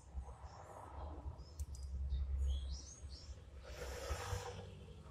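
Hands handling a small handmade wooden toy pistol, giving low rubbing and handling noise with a brief scraping rush near the end, and a few faint high chirps around the middle.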